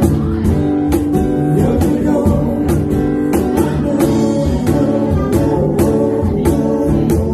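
Live band music: sung vocals over guitar, with a steady percussion beat.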